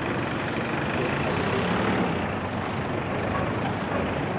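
Steady city street traffic: cars and a truck running along the road, a continuous wash of engine and tyre noise.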